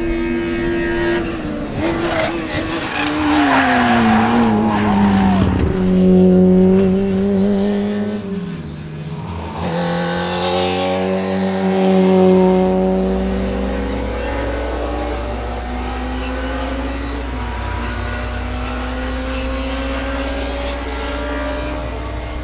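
WTCC touring car engines at race speed, the note climbing and dropping with gear changes and braking, with tyre squeal in the first few seconds. From a little past halfway, a steadier engine note over a constant low hum.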